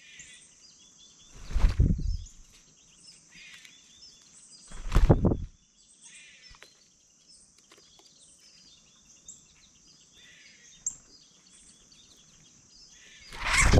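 Small birds chirping faintly now and then over a steady high hiss. Loud rumbling bursts of noise on the microphone come about a second and a half in, about five seconds in, and again near the end.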